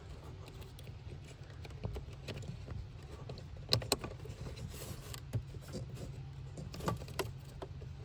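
Scattered irregular clicks and knocks of a replacement turn signal flasher relay being handled and plugged into its socket behind the glove box, over a steady low hum.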